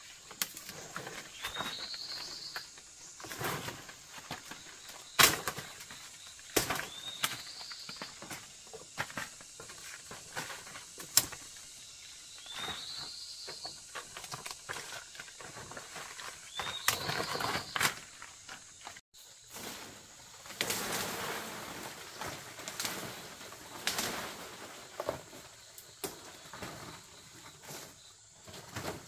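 A forest bird gives a short rising call four times, about five seconds apart, over rustling vegetation and sharp snaps and cracks.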